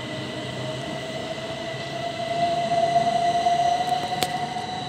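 Class 375 Electrostar electric multiple unit pulling away, its traction motors giving a steady whine that rises slowly in pitch as it accelerates. A single sharp click comes about four seconds in.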